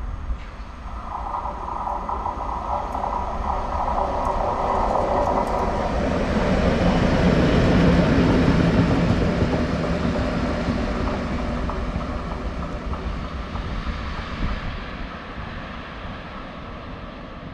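PKP Cargo EU07 electric locomotive passing close by as it brakes, loudest about eight seconds in, then fading as it rolls away and slows.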